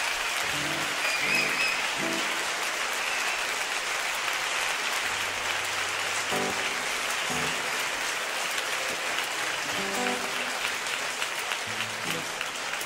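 Audience applauding steadily between songs, with a few scattered plucked notes from the band's acoustic instruments sounding over the clapping.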